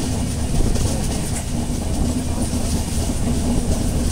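Steady low rumble of a moving vehicle, with a faint hum and a few light clicks.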